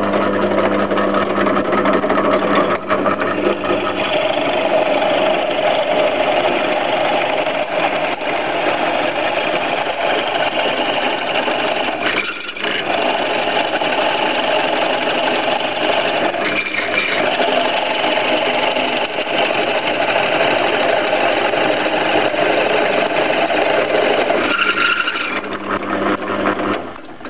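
Pillar drilling machine running with a 20-22 mm flat bit boring into a block held in a machine vice: a steady motor hum under the rasp of the cutting. It dips briefly twice midway and dies away near the end.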